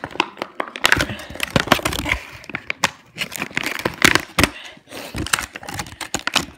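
Clear plastic toy packaging crinkling and crackling in the hands as it is unwrapped: a dense, irregular run of sharp crackles and rustles.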